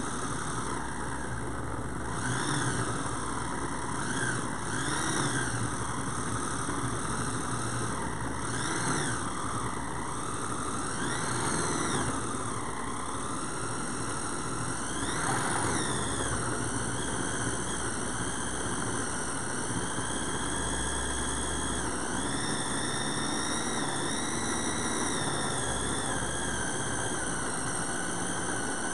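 A Pampered Chef Flex Plus cordless food processor running on its highest setting, its coarse grating blade shredding a block of cold mozzarella. The motor's whine rises and falls in pitch again and again over the first half, then holds steadier.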